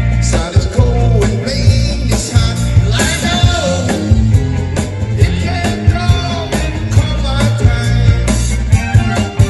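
A band playing a rock song with singing over a steady drum beat and bass.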